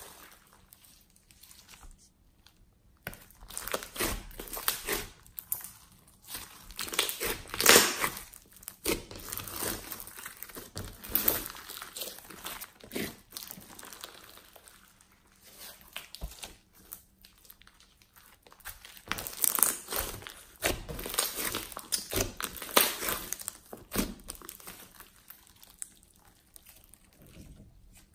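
Glossy slime mixed with small beads being stretched, folded and squeezed by hand, giving irregular bursts of sticky clicking and crinkling with short quiet pauses between handfuls.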